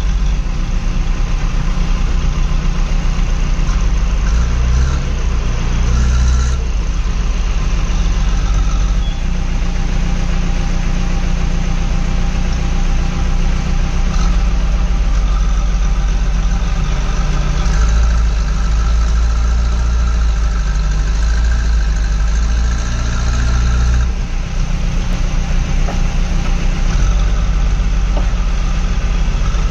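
Diesel engine of a JCB 3DX backhoe loader running steadily, heard from inside its cab, with a second loader's engine working close by. The engine note shifts a couple of times, about six seconds in and again near twenty-four seconds.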